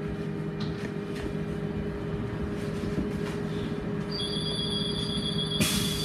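Škoda 14Tr08/6 trolleybus standing still, its on-board equipment giving a steady low electrical hum. About four seconds in a high steady tone starts, and a second or so later a burst of hiss comes in.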